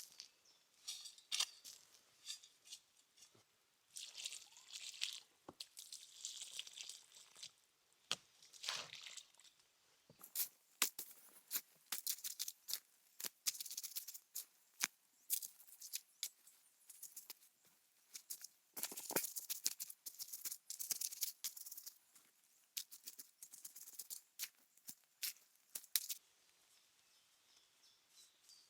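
Rustling and crackling with many sharp snaps and clicks, sparse at first and coming thick and fast from about a third of the way in.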